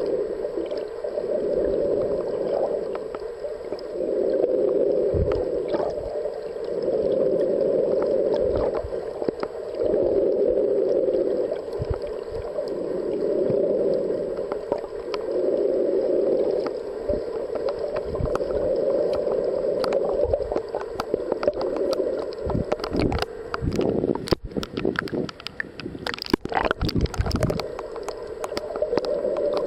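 Muffled water noise heard through a camera held underwater, swelling and fading every couple of seconds. Scattered clicks and knocks come in over the last several seconds.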